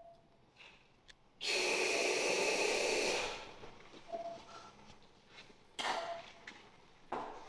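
A loud rush of air like a long breath, lasting about two seconds, from the horse breathing under general anesthesia. Two shorter, fainter rushes follow near the end.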